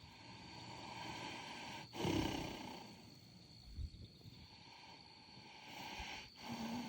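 A horse snoring: slow, noisy breaths, with a louder low snore about two seconds in and another near the end.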